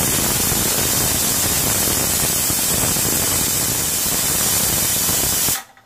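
Aluminium pressure cooker blowing off steam through its weighted valve, a loud steady hiss that cuts off sharply near the end. This is one of the cooker's counted "whistles": the mutton inside is up to pressure.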